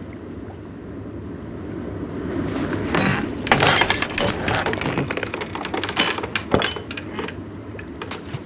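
Water washing against a wooden boat, with a flurry of knocks and clattering building in the middle, loudest about three and a half seconds in.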